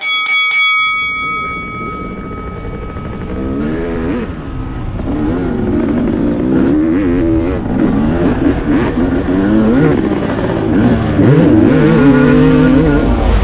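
A sharp hit with a ringing tone that dies away over about two seconds. Then two-stroke motocross bike engines revving hard on the track, pitch rising and dropping again and again as the throttle opens and closes, growing louder toward the end.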